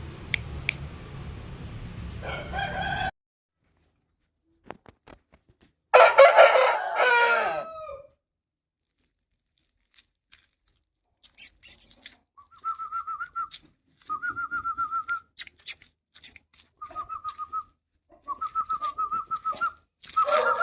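Aseel chickens: a steady hum stops abruptly about three seconds in, a rooster crows once about six seconds in, and from about twelve seconds on there is a string of short, rapidly trilled calls, each about a second long.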